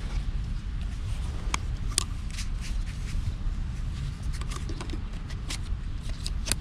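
Scattered light clicks and short rustles of objects being handled, over a steady low rumble.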